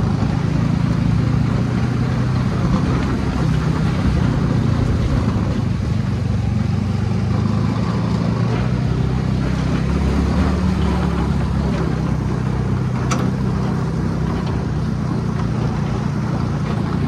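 Dune buggy engine running steadily at driving speed, a continuous low drone with a noise haze of the ride over it.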